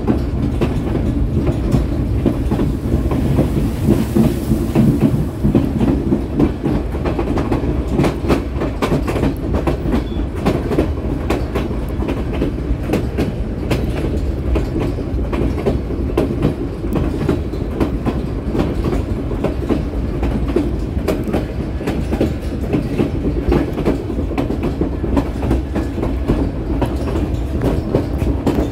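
Narrow-gauge White Pass & Yukon Route passenger train running, heard from on board: a continuous rumble of wheels on the rails with a constant clatter of small clicks.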